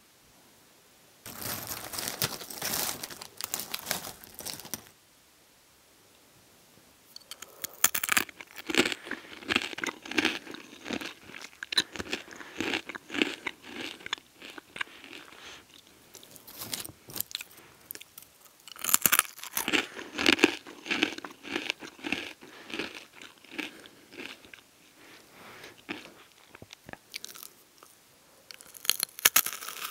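Close-miked crunching and chewing of hard pretzel twists, in spells of crisp irregular crackles broken by short pauses.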